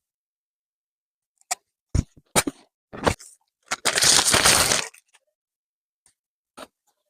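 Plastic clothing packaging being handled: a few sharp crackles, then a second-long burst of crinkling, and one last crackle near the end.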